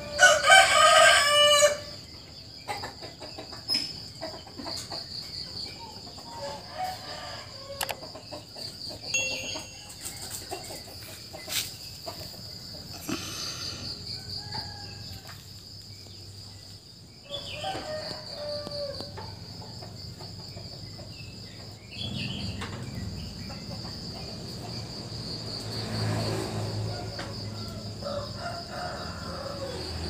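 A rooster crowing loudly in the first two seconds, with a second, fainter crow and scattered clucks and bird chirps later, over the steady trill of crickets. A low steady rumble comes in about two-thirds of the way through.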